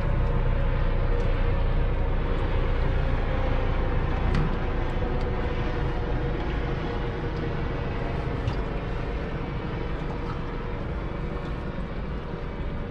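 Steady rumble of road traffic on a bridge, easing slightly in loudness, with a few faint clicks.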